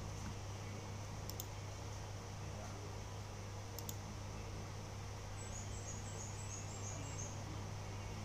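Room tone: a steady low hum with a few faint clicks. About five and a half seconds in, a quick run of short high-pitched chirps lasts under two seconds.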